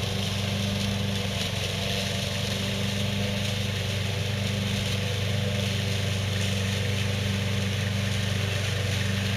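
Small gas engine of an Evatech Hybrid Goat 22T remote-control slope mower running at a steady, even speed as the mower pushes into thick tall grass.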